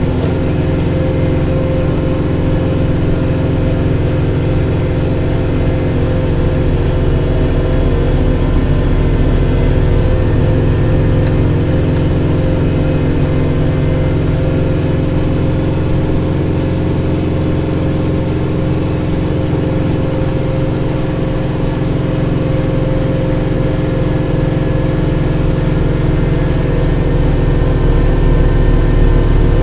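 Kubota diesel tractor running steadily while driving a rear-mounted snowblower, with no breaks; a little louder near the end.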